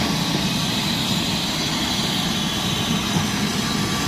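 Vehicle engines running steadily, a Caterpillar 428F backhoe loader's diesel among idling cars, under a constant hiss.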